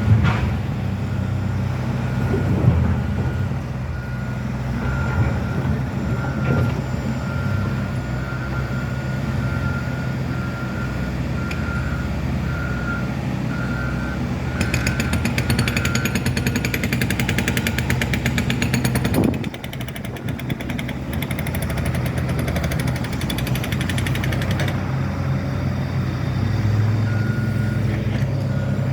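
Heavy diesel construction machinery running steadily while a reversing alarm beeps over and over. About halfway through, a jackhammer breaks concrete with rapid hammering for about ten seconds; the reversing beeps come back near the end.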